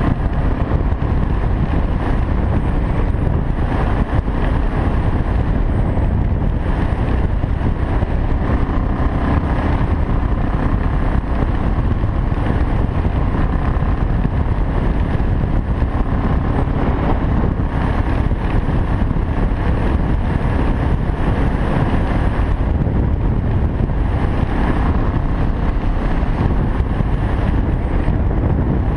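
BMW 650 GS single-cylinder engine running steadily at cruising speed, under a constant rush of wind buffeting the helmet camera's microphone.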